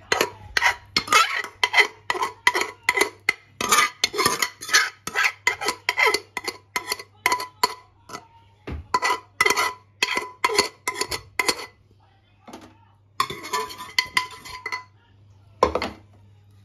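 Steel spoon scraping and clinking against a stainless steel bowl while mashed boiled lentils are mixed, in quick repeated strokes about two a second. The strokes pause near the end, then come a longer scrape and one sharp clink.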